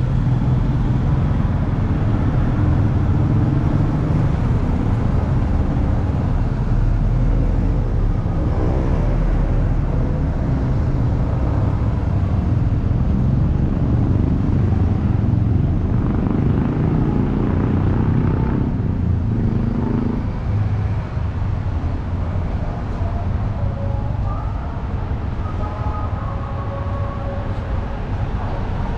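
Street traffic: motorcycles and cars passing on the road, over a steady low rumble.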